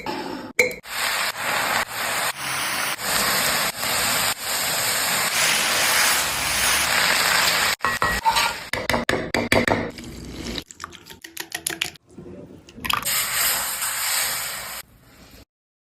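Potatoes frying in hot oil in a pan, sizzling while being stirred, in short clips that cut off abruptly; scrapes and clatter from the stirring come through in the quieter gaps.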